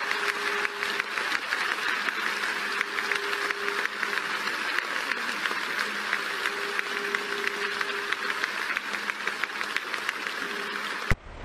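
A large stadium crowd applauding, a dense steady clatter of many hands clapping, with a faint held tone coming and going under it; it stops abruptly near the end.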